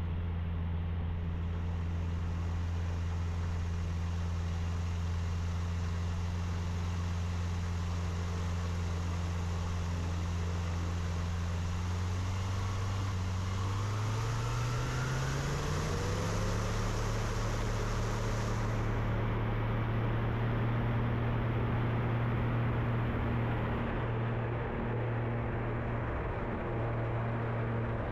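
Kitfox light aircraft's engine and propeller running steadily. About halfway through, the pitch rises as power comes up for the takeoff run from the gravel bar, then holds steady at the higher pitch.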